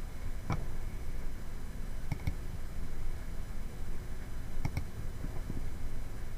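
Computer mouse clicking: a single click, then two double clicks a couple of seconds apart and a few fainter clicks near the end, over a steady low hiss and hum.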